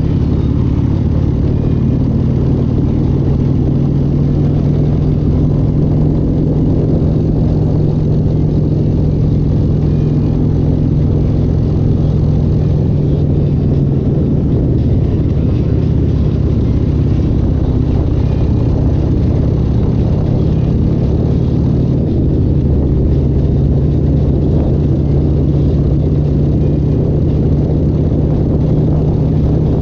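Loud engine running steadily at a fairly constant speed, a low drone whose pitch shifts slightly about halfway through.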